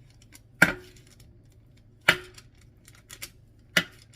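Knife scoring a seitan ham, the blade clicking sharply against the hard surface beneath at each cut: a handful of separate clicks a second or so apart, over a faint steady hum.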